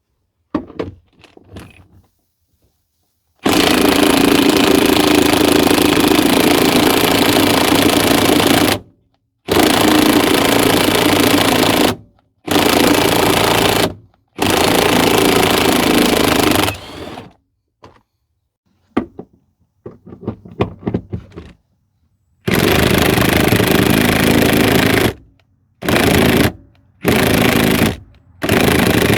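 Cordless power tool running in repeated bursts of a few seconds each, starting and stopping abruptly, with shorter bursts near the end. Its battery is running flat.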